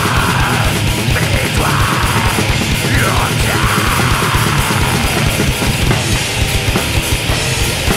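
Death metal song: heavily distorted guitars over fast, dense drumming, loud and unbroken.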